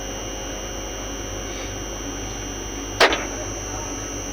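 Electrical contactor humming steadily, with a steady high-pitched whine over the hum. A single sharp knock about three seconds in.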